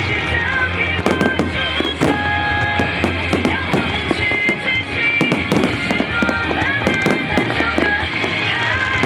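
Fireworks bursting in rapid, irregular succession, many cracks and bangs close together, over music.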